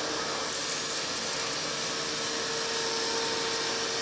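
Shop vacuum running steadily, its hose sucking up concrete chips and dust from a chipped-out slab. A steady hum sits under the rush of air.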